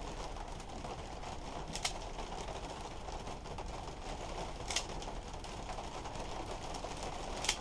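Three light, sharp clicks a few seconds apart over a steady low hum: wire cutters snipping the ends of the trimmer cord's wires.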